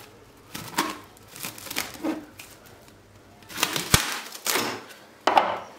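Plastic cling film crinkling in short irregular bursts as it is pressed down by hand over a steel pot, with one sharp tap about four seconds in.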